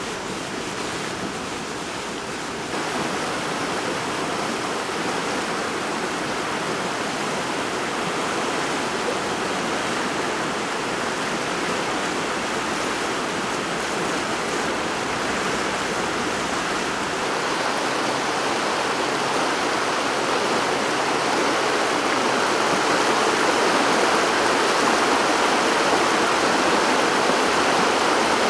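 Steady rushing roar of a typhoon-swollen river in flood, with no break in the noise; it steps up in loudness a few seconds in and grows louder again in the last third.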